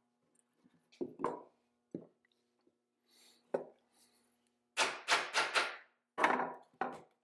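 Irregular sharp knocks and clacks of hand tools working a copper ribbon coil on a metal winding mandrel: scattered single strikes, then a quick run of four about five seconds in and two more near the end.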